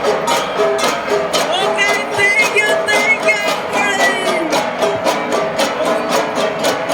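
Cordillera gong ensemble (gangsa) playing a steady interlocking beat, about three strikes a second, the struck bronze gongs ringing. A high wavering call sounds over it from about two to four seconds in.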